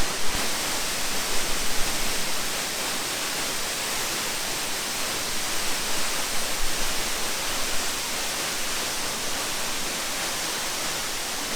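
Steady rush of falling water from a tall waterfall, about 70 metres high, heard close to its base.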